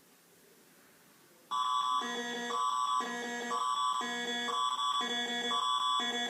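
Canadian emergency alert attention tone, starting suddenly about one and a half seconds in. A steady high tone sounds under lower tones that alternate about every half second, the signal that comes before an Ontario Amber Alert.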